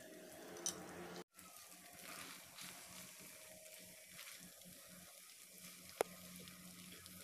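Faint sizzling of udon noodles frying in a non-stick grill pan, with light clicks of chopsticks and a wooden spatula against the pan as the noodles are stirred. The sound drops out briefly about a second in, and there is one sharp click near six seconds.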